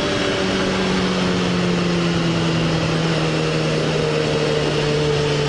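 Suzuki GSX-R motorcycle engine running steadily under way, its note easing slowly lower in pitch. Steady wind and road rush is heard from on the bike.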